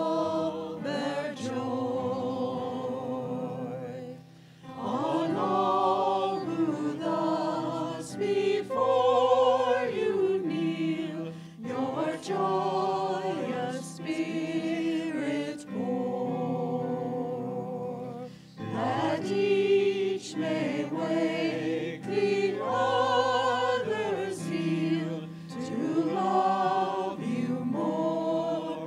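A woman sings a sacred song with vibrato over held low accompanying notes. Her phrases break off briefly about four seconds in and again past the middle.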